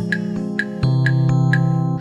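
Background music with held chords over a bass line and a steady beat.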